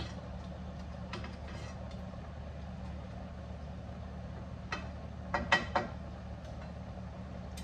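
Kitchen tongs clicking and clinking against a skillet as pieces of chicken are tossed in sauce: a few scattered clicks, then a quick loud cluster a little past halfway. A steady low hum sits underneath throughout.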